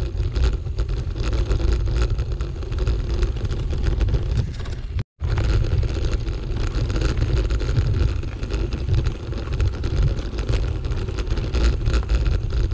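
Bicycle rolling over a gravel forest track: a steady low rumble of wind on the microphone and tyres on gravel, with small crunches and clicks throughout. It breaks off for an instant about five seconds in.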